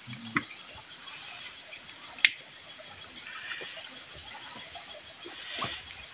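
Steady high-pitched drone of forest insects, with one sharp click about two seconds in.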